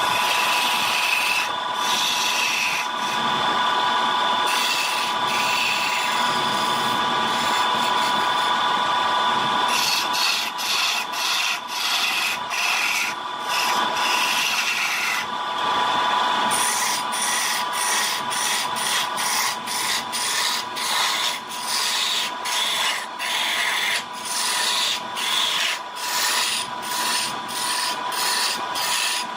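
Wood lathe running with a steady whine while a tool rubs and scrapes against the spinning wood. From about ten seconds in, the scraping comes in short regular strokes, about one a second.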